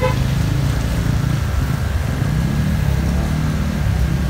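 Motorcycle engine running at low speed, heard from the seat behind the rider, with a brief high beep right at the start.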